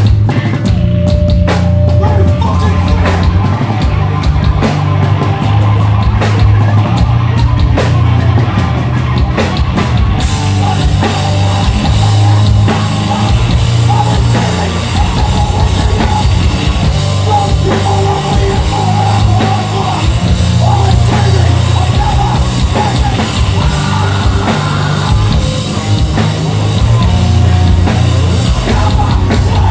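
Hardcore punk band playing live and loud: distorted guitars, bass and a full drum kit driving a fast song. About a third of the way through, the cymbals come in hard and the sound fills out.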